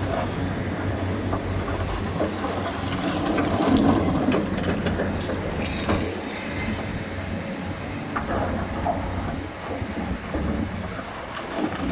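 Excavator at work: its diesel engine running steadily, with noise swelling and easing and a few sharp knocks, loudest about four seconds in.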